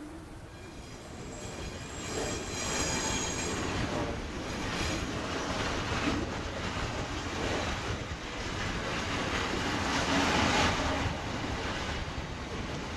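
Freight train of tank and covered wagons hauled by an electric locomotive rolling slowly past on curved track. From about a second in, a high wheel squeal lasts about three seconds, then the wagons run on with a steady rumble and repeated wheel knocks over the rail joints and points.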